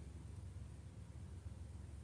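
Quiet room tone: a faint steady low hum with light hiss, and no distinct sound.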